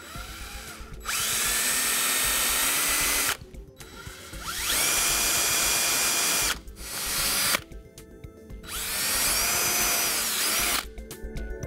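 Cordless DeWalt drill boring into a boat's fiberglass hull: three runs of about two seconds each and a shorter burst between the second and third. Each run spins up with a rising whine, then holds steady.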